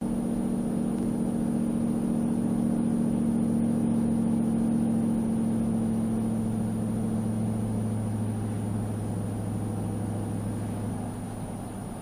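A 2004 Nissan Titan's 5.6-litre V8, fitted with JBA long-tube headers and a Borla 40944 muffler with a Vibrant UQ resonator, heard from inside the cab while cruising: a steady low exhaust drone over road noise, easing off and getting quieter near the end.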